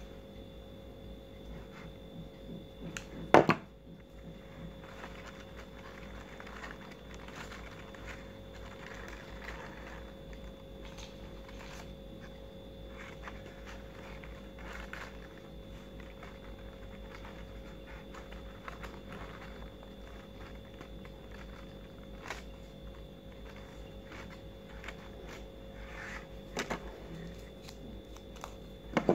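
Quiet handling of stiff paper petals and a hot glue gun: soft paper rustling with a few short sharp knocks, the loudest about three seconds in, over a steady faint hum.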